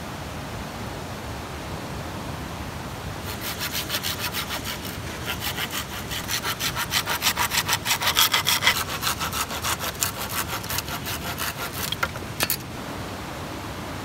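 Pruning saw cutting through a green bamboo pole in quick back-and-forth strokes, about four a second. The strokes start about three seconds in, are loudest in the middle, and stop about a second and a half before the end, over a steady rushing hiss.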